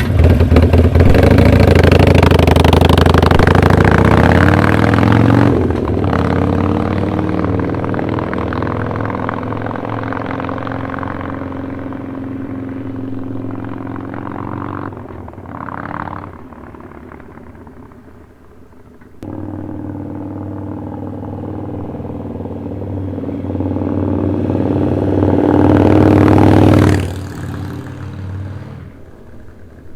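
Harley-Davidson Sportster Roadster's 1200 cc V-twin engine breathing through a Vance & Hines aftermarket exhaust, being revved: it holds high revs and then settles to idle about five seconds in. A short blip comes midway, and near the end the revs climb slowly to a loud peak and drop back.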